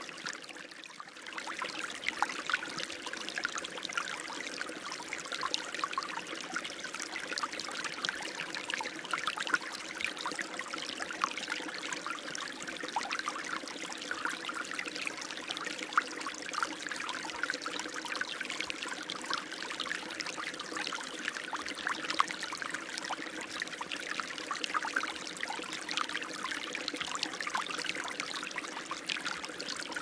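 River stream flowing steadily, with a dense patter of small splashes and gurgles. It dips in level briefly about a second in.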